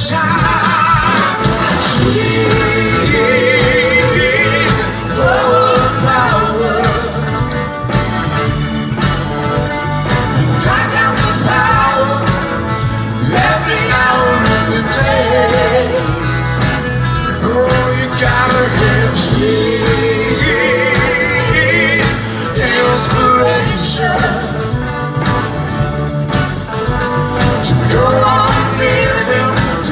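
A live band playing a soul-rock song, with a singer's wavering, sustained vocal lines over electric guitars, bass and drums.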